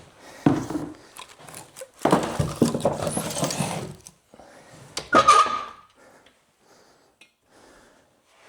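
Irregular scraping and knocking of hard objects being handled, with one long scrape lasting about two seconds near the middle and a short squeaky scrape about five seconds in.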